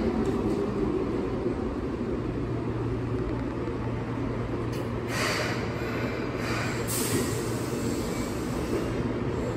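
Keihan 6000-series electric commuter train pulling into the platform and braking to a stop: a steady low hum over a rumble that fades as it slows, then two short hisses about five and seven seconds in.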